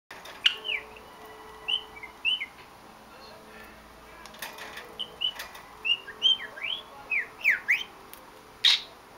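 Budgerigar chirping: a quick run of short high chirps that slide up and down in pitch, mixed with a few sharp clicks, busiest and loudest in the second half.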